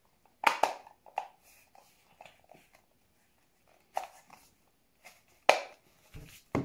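Hard plastic clicks and knocks from the two halves of a yellow LOL Surprise ball being handled and pressed together, with sharp snaps about half a second in, at about four seconds and at about five and a half seconds, and light rustling in between.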